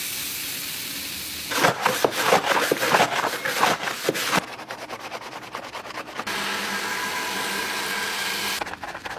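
A steady spray hiss as cleaner mists over an engine bay. Then come loud, irregular scrubbing strokes of a hand and sponge over the foam-covered plastic engine cover. After that, a steady hiss of water from a spray nozzle rinsing off the foam, with more rubbing near the end.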